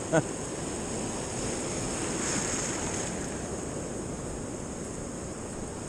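Sea surf washing in over the shallows: a steady rush of breaking waves that swells a little about two seconds in.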